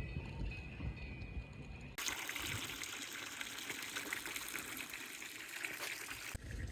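Steady rush of running water that starts abruptly about two seconds in and stops shortly before the end; before it, a low rumble.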